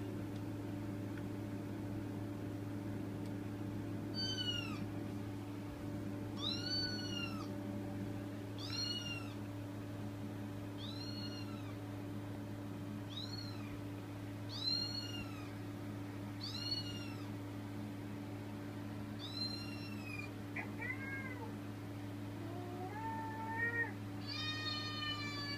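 Recorded cat meows played back through a television speaker: starting about four seconds in, about eight meows roughly two seconds apart, each rising then falling in pitch, then a few longer, wavering meows near the end, over a steady low hum.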